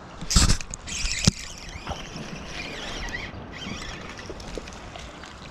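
Fishing with a spinning rod and reel: a quick swish of the rod for a hookset about a third of a second in, a sharp click a second later, then about two seconds of rattling, splashy noise as the reel is cranked with a fish on, over light wind on the microphone.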